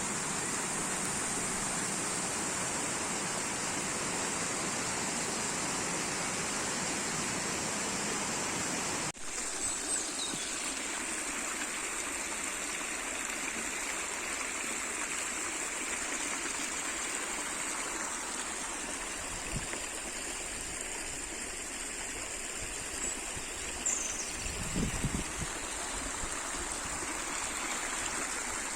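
Running water in a stream, babbling and trickling steadily. It breaks off for an instant about nine seconds in, then carries on, with a few fuller gurgles near the end.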